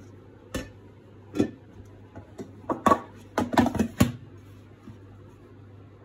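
Knocks and taps on an upturned aluminium cake pan sitting on a plate, struck by hand to loosen the cake so it drops out. Two single knocks in the first second and a half, then a quick cluster of five or so about three to four seconds in.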